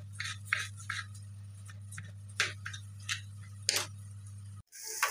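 Scattered light clicks and taps of kitchen work over a steady low hum. Near the end, after a brief cut, comes the even hiss of chicken frying in a pan.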